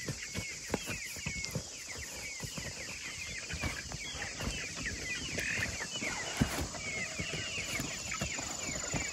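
Many birds chirping in quick, high, downward-sliding peeps, with scattered knocks and footsteps of people walking and handling a plastic bucket.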